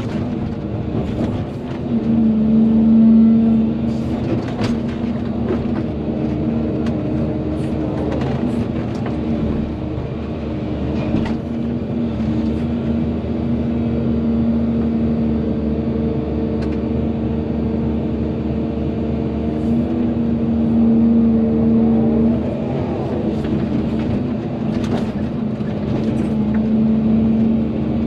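Volvo EC220DL excavator's diesel engine running steadily under digging load, its note swelling and easing as the hydraulics work. Scattered short clanks and knocks sound throughout.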